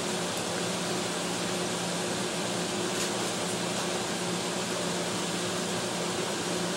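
Steady fan-like hiss with a faint low hum underneath: background noise of a fan running in the room, picked up by the microphone. A faint click comes about three seconds in.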